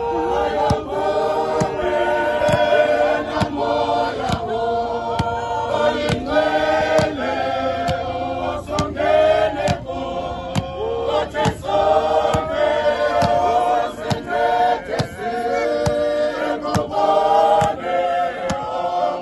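A large church congregation, mostly men's voices, singing a hymn together without instruments, the voices continuous and full throughout. A regular sharp beat runs under the singing.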